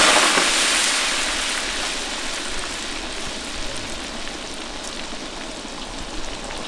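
Raw french fries deep-frying in hot oil in a cast-iron cauldron. A loud sizzle eases over the first couple of seconds into a steady bubbling hiss with small scattered pops.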